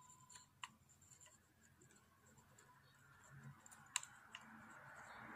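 Near silence with a few faint clicks of tools on a circuit board during desoldering, and a faint hiss building near the end.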